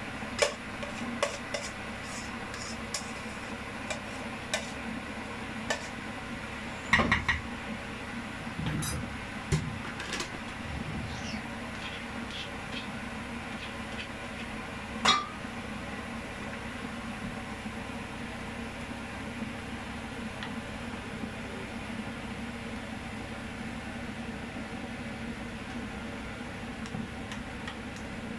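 A spatula scraping and tapping against a glass Pyrex baking dish as mashed potato is spread over the filling: scattered light clicks, a short cluster about seven seconds in and a sharper knock about halfway through, over a steady low hum.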